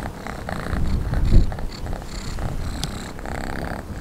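Kitten purring in repeating cycles while being stroked on the head, with a low rumble swelling about a second and a half in.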